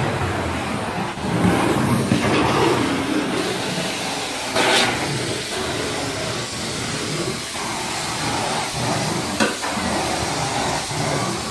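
Carpet-cleaning extraction wand spraying and sucking water and air from the carpet during hot-water extraction, a steady loud rushing hiss as the wand is pulled in strokes, with a couple of brief louder rushes.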